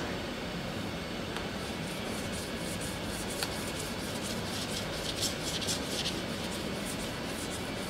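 Steady background hum of a car assembly hall. From about two seconds in to about six seconds, a quick run of short scratchy rubbing strokes sounds over it.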